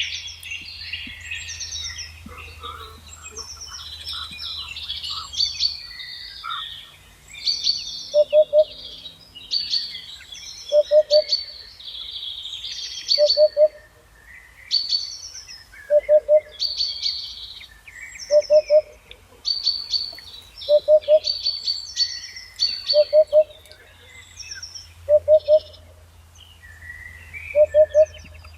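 Several songbirds singing and chirping in high, quick phrases. From about eight seconds in, a lower call of two or three short notes repeats about every two and a half seconds.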